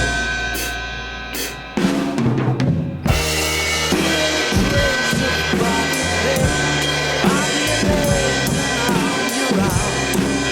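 Drum kit played over a rock backing track. A few hits land over a held bass note, then about three seconds in the full band and a steady kit beat come in together.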